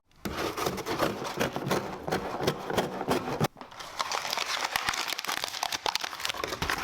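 Dense crinkling and clicking that comes in two stretches, broken by a short gap about three and a half seconds in.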